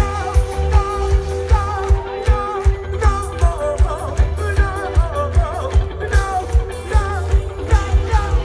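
Rock band playing live through a concert PA, with a steady kick-drum beat about twice a second under a wavering melody line.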